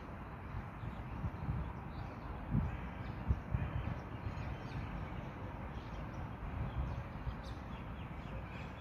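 Crows cawing now and then over a steady low wind rumble and bumps on the phone's microphone.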